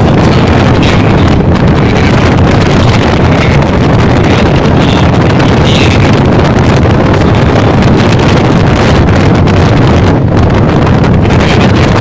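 Loud, steady wind buffeting the microphone, a dense low rumble with no clear tones.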